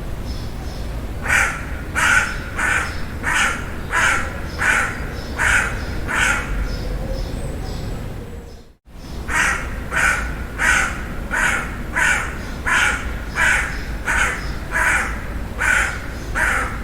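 A crow cawing in long runs of harsh caws, about three every two seconds, over a steady low background hiss. A little past the middle the sound cuts out completely for an instant, then the cawing resumes at the same pace.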